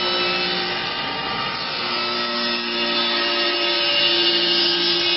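Four-cutter CNC wood lathe cutting a curved wooden chair leg: spinning cutter heads chipping wood over a steady machine hum. The hum fades for a moment about a second in, then returns.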